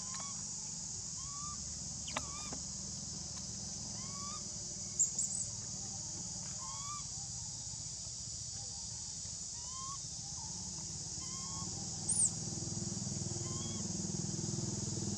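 Steady high insect drone with a series of short, rising-and-falling call notes repeated about once a second from a bird or animal. A low engine rumble grows near the end.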